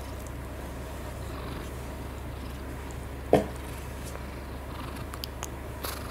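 Domestic cat purring steadily, close up. One short, loud sharp sound cuts in about three seconds in, and a few faint clicks come near the end.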